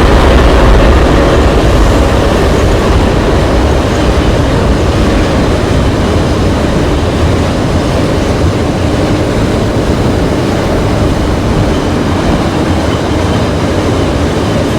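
Freight train of tank cars rolling past close by: a deep rumble, strongest in the first couple of seconds, eases into a steady rolling and clattering of the cars' wheels on the rails.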